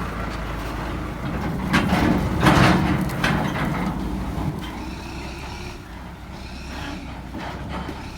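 An engine running steadily with a low hum. A louder rush of noise comes between about two and three seconds in, then the sound slowly fades.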